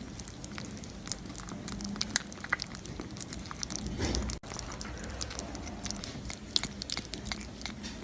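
Quiet chewing and crunching: many small, irregular clicks with no music under them.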